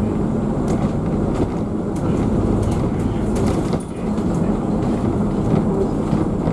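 Double-decker bus driving, heard from inside on the upper deck: a steady low engine and road rumble with light rattles and clicks from the bodywork.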